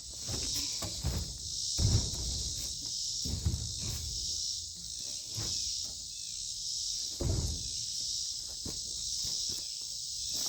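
Steady outdoor insect chorus, a high buzzing that pulses regularly, with a few dull low thumps and rustles of handling or footsteps, the heaviest about two seconds in and about seven seconds in.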